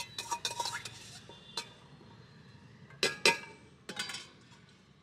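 Steel utensils clinking against metal pans and trays: a quick run of sharp clinks in the first second, a single one near the middle, then the loudest pair about three seconds in and a few more just after.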